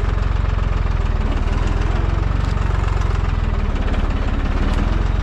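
Deutz-Fahr 55 F tractor's diesel engine running steadily at low revs.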